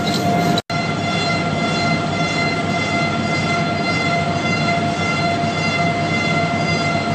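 Steady mechanical whine from a large metalworking lathe's drive running, one fixed pitch with even overtones over a rushing noise. It breaks off for an instant under a second in, then carries on unchanged.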